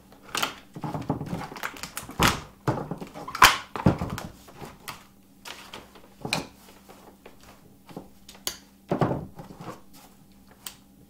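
Steel locking pliers being pulled off a plastic blister card and set down on a paper-covered table: a run of separate knocks, clicks and plastic rattles, loudest about three and a half seconds in. It ends with fainter clicks as one locking plier is handled and worked.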